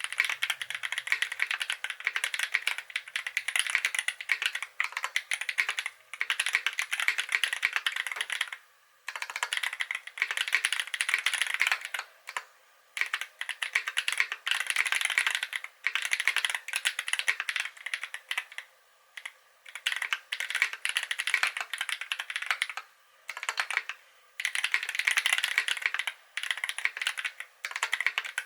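Typing on a KBD8x MKII mechanical keyboard with lubed Holy Panda tactile switches on a brass plate: fast, continuous runs of keystrokes broken by several short pauses.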